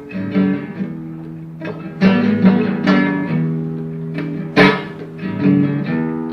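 Acoustic guitar playing a blues passage without singing: strummed chords and picked notes, each struck sharply and left to ring.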